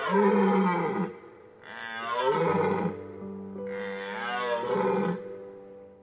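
Red deer stag roaring three times, each deep roar lasting about a second, the rutting call of the stag. Background music with steady held tones plays underneath.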